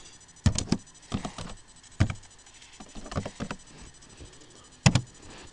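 Typing on a computer keyboard: quick bursts of key clicks, with one louder, sharper click near the end.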